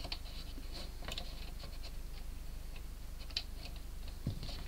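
Faint scattered clicks and scratches of small 3D-printed plastic parts being handled and fitted together by hand, over a steady low hum.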